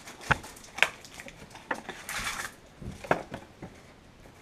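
Kitchen utensils and containers handled on a counter: a handful of sharp knocks and clatters, with a brief rustle about two seconds in.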